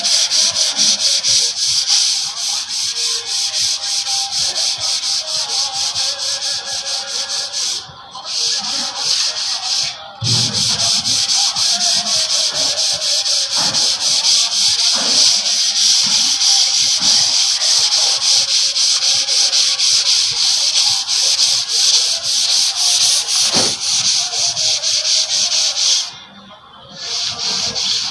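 Sanding a wall coated with wall putty: a steady, loud rasping made of quick repeated strokes, with three short pauses.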